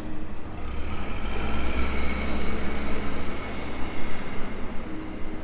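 Steady low mechanical rumble with background noise, swelling for a few seconds in the middle.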